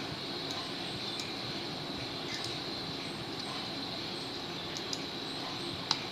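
Steady background hiss of room and microphone noise with a faint high whine, broken by a few soft computer-mouse clicks; the sharpest click comes near the end.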